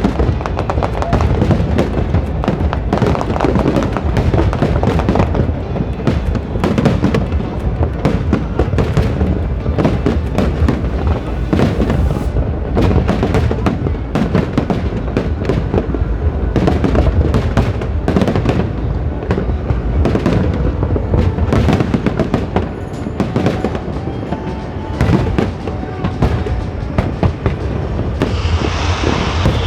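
New Year fireworks barrage: a dense, continuous run of bangs and crackles with deep booms underneath, and a falling whistle near the end.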